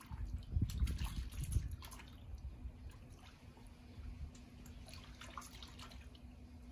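Water splashing and dripping as a cut hand is rinsed, louder for the first two seconds, then fainter drips.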